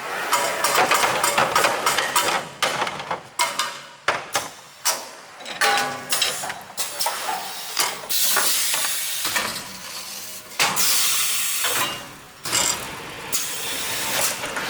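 CNC paper-core cutting machine running: repeated knocks and clatter, with long bursts of hiss about halfway through.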